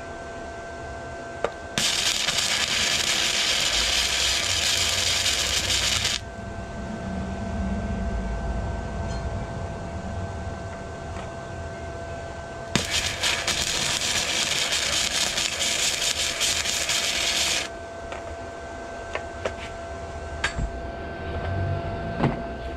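Arc welding: two welding passes with a steady crackling hiss, one of about four seconds starting about two seconds in and one of about five seconds past the middle, each starting and stopping abruptly. The welding fills in a drilled hole in a flat steel saddlebag bracket. A few small clicks near the end.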